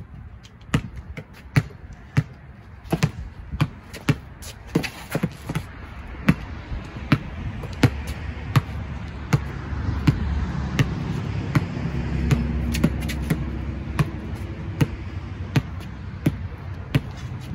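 Basketball dribbled on a concrete driveway, bouncing about once every 0.7 seconds. A low rumble swells and fades underneath through the middle.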